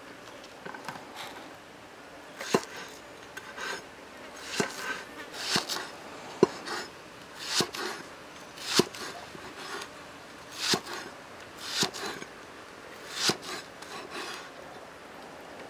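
Cleaver slicing crosswise through a leek on a wooden board, a cut every second or so from a couple of seconds in: each a short crisp swish ending in a sharp knock of the blade on the wood.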